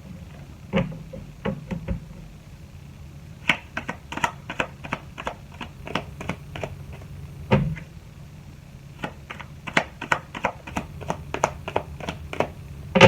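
Tarot cards being handled and shuffled by hand: a long run of irregular soft clicks and taps as the cards strike each other, with an occasional louder knock.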